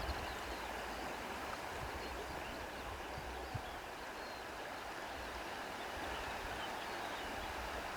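Steady rushing of flowing water, like a stream, in an outdoor nature ambience, with a brief low knock about three and a half seconds in.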